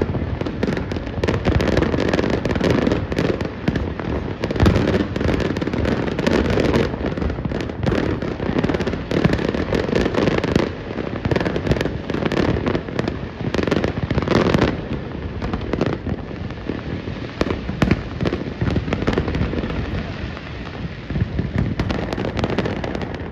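Fireworks display: a dense, continuous run of booms and crackling bursts that thins out about two-thirds of the way through.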